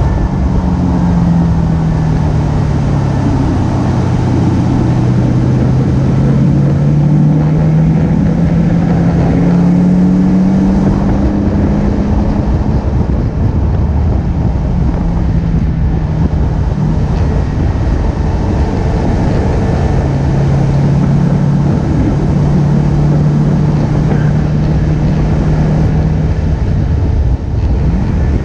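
Car engine running at track speed under steady wind and road noise, its pitch slowly rising and falling as the throttle is applied and eased.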